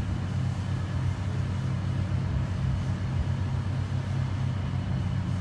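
Steady, deep mechanical drone, an even low hum with no revving or change in pitch.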